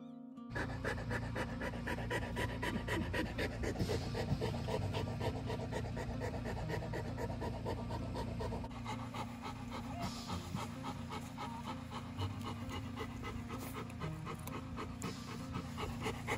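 Golden retriever in labour panting rapidly and heavily close to the microphone, starting about half a second in and keeping up a steady rhythm of quick breaths: the hard panting of whelping.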